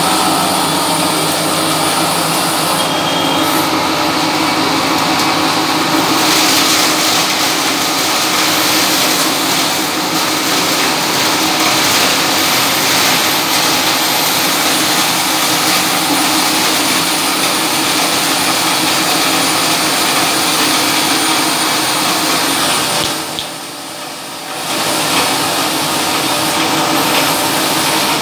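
Electric-motor pharmaceutical waste cutter running loudly and steadily as it shreds tablet blister strips fed into its hopper. It quietens briefly for about two seconds late on.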